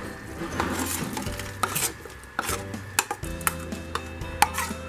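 Spoon scraping thick ground masala paste out of a steel bowl into a cooking pan: a run of metal-on-metal scrapes and clinks.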